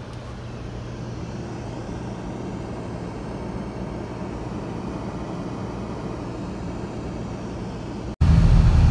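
Steady rush of an Infiniti car's climate fan blowing hard on the windshield defrost setting, heard inside the cabin. About eight seconds in it cuts abruptly to a louder, deeper rumble.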